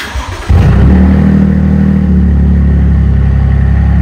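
2022 Toyota Tundra's twin-turbo V6 cranks briefly, catches about half a second in, and flares loudly before settling into a steady idle about two seconds in. It is running with the cat-back exhaust removed, so it breathes straight out past the catalytic converters with no muffler.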